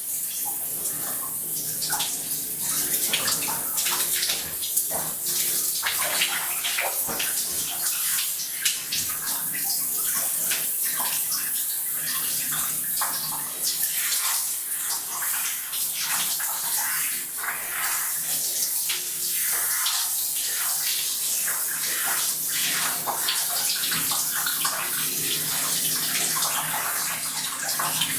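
Water running and splashing into a bathtub: a steady hiss with constant small, irregular splashes.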